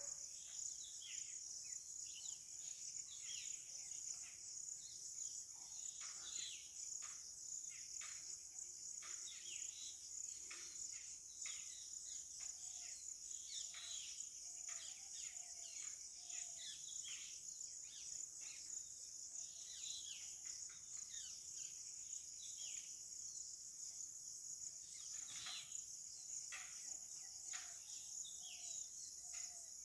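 Rural outdoor ambience: a steady high-pitched insect trill throughout, with many short, quick chirps from small birds scattered over it.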